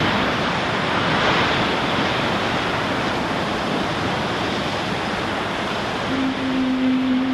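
Steady rush of ocean surf, with a low steady tone joining in near the end.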